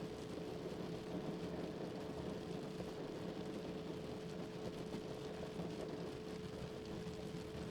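A steady pure 432 Hz tone held unchanging over a constant wash of falling rain.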